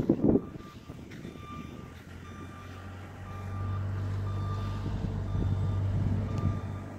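A vehicle's reversing alarm beeping in a steady single tone, a little faster than one beep a second, while its engine runs, the low hum growing louder about three seconds in. A short bump sounds near the start.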